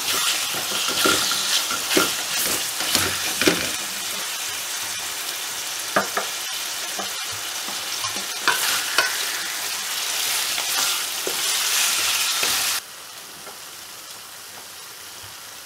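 Raw chicken mince sizzling in hot oil in a metal pan, with a wooden spatula scraping and stirring through it in repeated strokes. About thirteen seconds in the sizzle drops abruptly to a much quieter, steady hiss.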